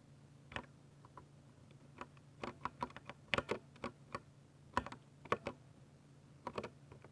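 Mechanical keyboard with silver switches being typed on: irregular keystrokes, a few scattered at first, then short bursts of rapid clicks with pauses between.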